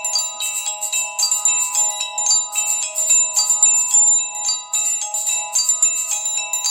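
A preloaded Samsung Galaxy Light ringtone playing: a quick tune of short, high pitched notes, several a second, with no bass.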